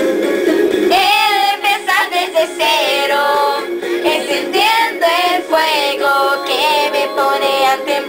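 Several young women's voices singing a Spanish-language pop song together, holding long notes with a wavering vibrato, with short breaks between phrases.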